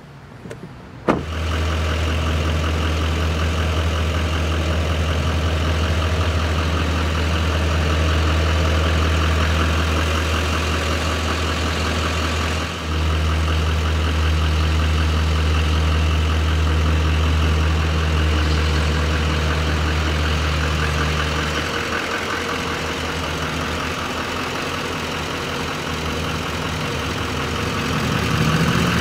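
Turbo-diesel pickup truck engine, the Silverado 2500HD's 6.6-litre Duramax V8, idling steadily with a deep, even hum after a short knock about a second in. The deepest part of the hum drops away about 22 seconds in.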